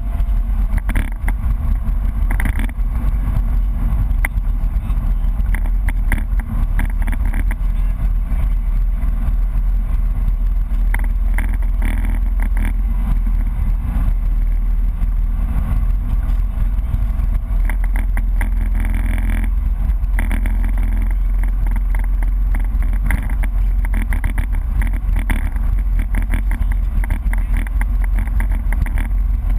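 BMW E30 rally car driving at speed, heard from inside the cabin: the engine gives a loud, steady low drone, mixed with road and tyre noise.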